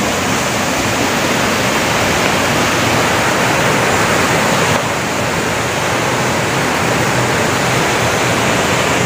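Mountain waterfall pouring into a pool: a loud, steady rush of water.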